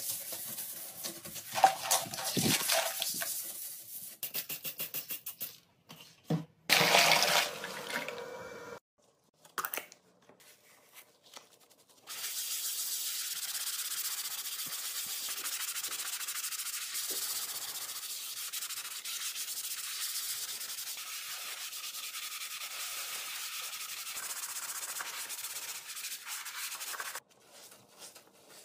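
Toilet brush scrubbing and swishing in the toilet bowl water, then, after several abrupt cuts, a long steady rubbing scrub of a ceramic sink by a gloved hand.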